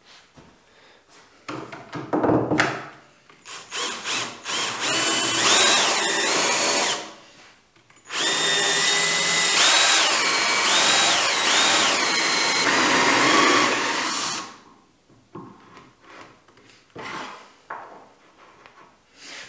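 Ryobi cordless drill boring a hole into the end grain of a round wooden handle, in two long runs with a short pause between. The motor whine rises and falls several times as the trigger is squeezed and eased. Before and after the drilling come light clicks and knocks as the workpiece and the metal bottle-opener insert are handled.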